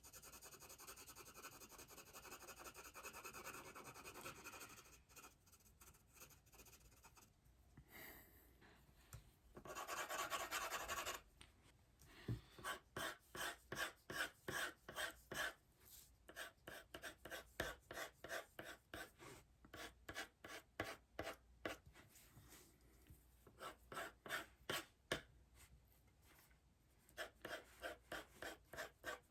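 Drawing strokes scratching on sketchpad paper, faint. Soft continuous shading at first, one longer, louder stroke about ten seconds in, then quick repeated back-and-forth strokes at about three a second.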